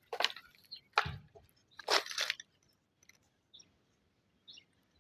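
A few short crunching scuffs in the first two seconds or so, then faint scattered clicks.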